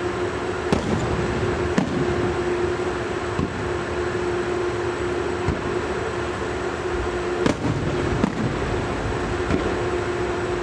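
Fireworks going off: a series of sharp bangs a second or two apart, the loudest about three-quarters of the way through, over a steady rumble with a constant hum.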